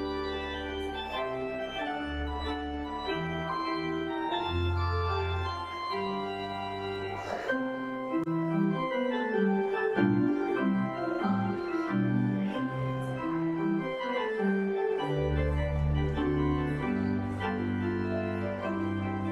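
Church organ playing the postlude after the benediction: sustained chords under a moving melody, over deep bass notes. The bass falls away for several seconds midway while the upper parts move in quicker notes, then it returns.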